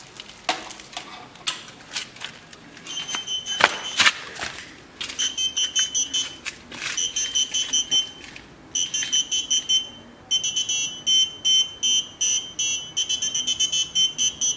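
A few sharp clicks and knocks, then from about three seconds in a high-pitched electronic alarm beeping in fast pulsed bursts. It is a homemade intruder alarm, a microcontroller with sound sensors built into a door mask, set off by someone trying to get in.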